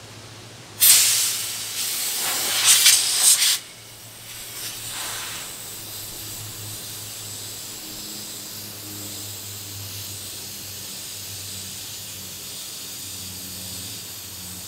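Compressed air from an air-compressor hose hissing loudly for about three seconds while it is fitted to a submerged AC condenser to pressure-test it for leaks, then a fainter steady hiss.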